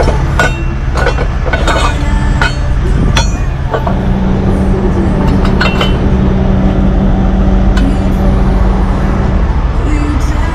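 Steel clanks and clinks of heavy-duty tow truck underlift fork parts being handled and pinned in place, most of them in the first four seconds and a few more around five to six seconds in, over the steady rumble of an idling heavy truck diesel engine.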